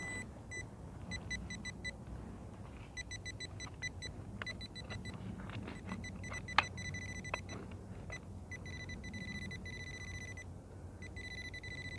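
Handheld metal-detecting pinpointer beeping as it is probed through loose soil: high pulsed beeps in short runs that quicken into a rapid pulse and a near-steady tone in the later seconds as its tip closes on the metal target. A few faint knocks and scrapes of the probe against the soil and stones.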